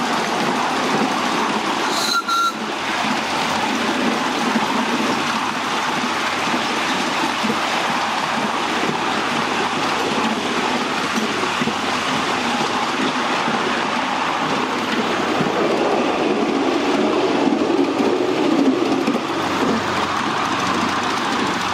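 Miniature railway train running along its track with a steady rumble and clatter of wheels on rails, heard from the riding car. About two seconds in there is a brief high squeak.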